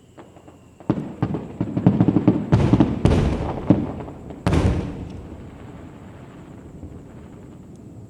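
Fireworks bursting: about a second in, a rapid crackling string of many bangs starts, with several loud booms among them, then a rumbling echo dies away.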